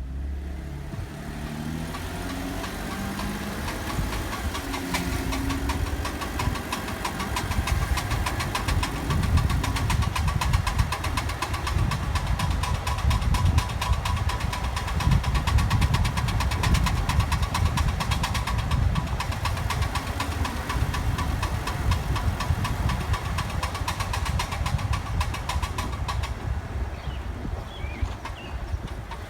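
Car driving, road and engine rumble with a rapid, repeating clicking from the driver's side front wheel area: the sound that a friend has diagnosed as a bad CV joint.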